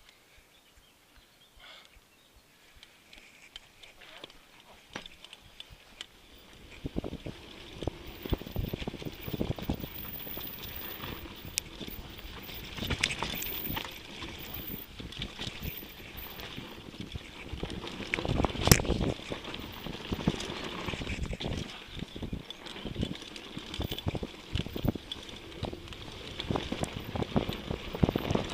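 Mountain bike riding down a dirt trail: rolling tyre noise, rattling knocks and wind on the microphone. It starts quietly, builds about seven seconds in, and has a single loud knock about nineteen seconds in.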